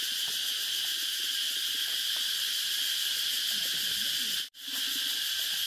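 Steady, high-pitched drone of an outdoor insect chorus, cicadas or crickets. The sound briefly cuts out about four and a half seconds in, then carries on.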